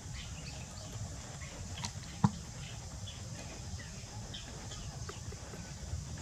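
Outdoor background with a steady low rumble and a steady high hiss, a few faint short chirps, and one sharp click a little over two seconds in.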